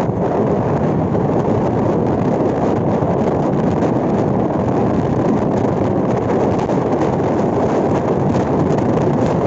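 Steady wind rushing over the microphone, mixed with the road and engine noise of a car driving at speed.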